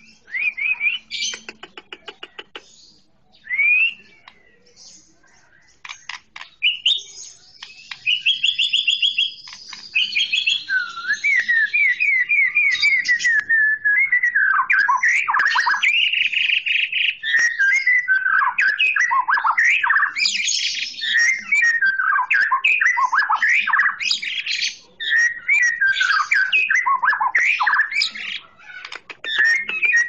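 Cucak ijo (green leafbird) singing a varied song of quick whistled notes, slurred glides and rapid trills. The phrases come with pauses at first and run almost without a break from about halfway on.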